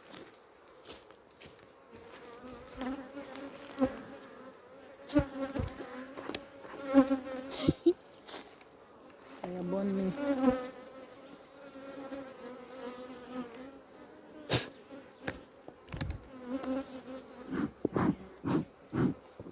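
Honey bees buzzing in flight around an opened hive, a wavering hum that swells and fades, growing loud for about a second halfway through. Occasional knocks and clicks of hive frames being handled, more frequent near the end.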